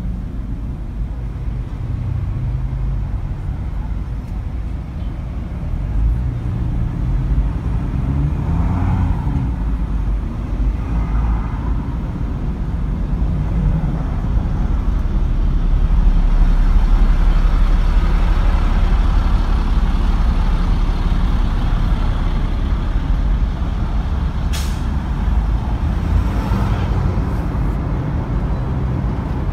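Steady low rumble of a car driving in slow city traffic, heard from inside the cabin, getting louder for a while past the middle. A brief sharp noise stands out near the end.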